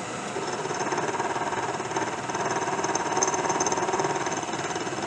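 Milling machine cutting a slot into a rifle barrel's breech with a disc-shaped side cutter. It runs steadily with a fast flutter, growing louder after the first moment and easing toward the end.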